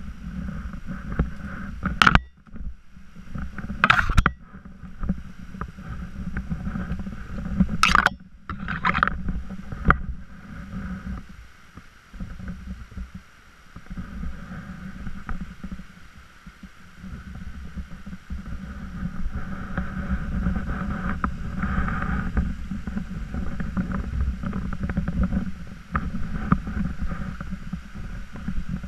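Rumbling, buffeting noise on a head-worn camera's microphone as the wearer scrambles over rock, over the trickle and splash of a small stream running down the rocks. Several sharp knocks in the first ten seconds, the loudest sounds here, from steps or the camera bumping.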